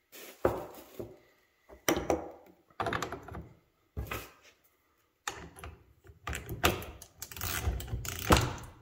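Hand tools knocking and clanking on a workbench and against an engine oil cooler and filter housing: single sharp knocks with gaps at first, then a denser run of metal clatter in the last few seconds as a ratchet is put to a bolt on the housing.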